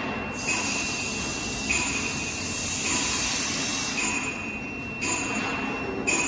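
Automated welding machine running with a steady high-pitched whine that cuts in and out several times. Under it is a hiss that swells in the middle and fades about four seconds in, typical of the machine's axes being jogged while points are taught.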